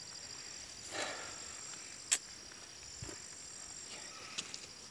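Insects trilling steadily in a high-pitched, fast-pulsing chorus, with one sharp click about two seconds in.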